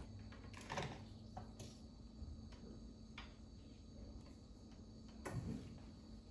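A few faint clicks and light knocks as a milk frother is set on its base and its power cord is handled and plugged in. The two louder knocks come about a second in and near the end.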